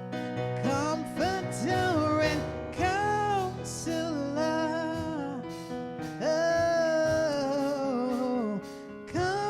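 Slow gospel song: a solo voice singing long held notes that glide between pitches, over steady instrumental accompaniment.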